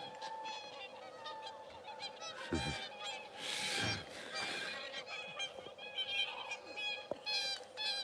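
A flock of whooper swans honking, with many short calls overlapping. A brief rush of noise comes about three and a half seconds in.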